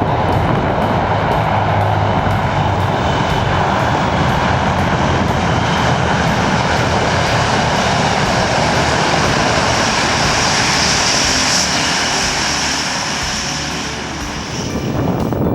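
Engines of a large Antonov cargo aircraft running loudly and steadily, with a low hum under a dense roar. A high whine grows stronger in the second half, and the sound eases slightly near the end.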